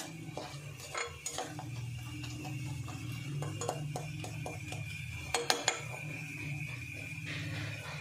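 Spoon stirring and scraping sliced nux vomica (kuchla) frying in ghee in an aluminium pan, with a run of light clinks against the metal and three sharp clinks close together about five and a half seconds in. A steady low hum runs underneath.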